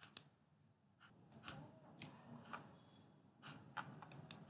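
A computer mouse clicking: about eight faint, sharp clicks at uneven intervals, the room otherwise nearly silent.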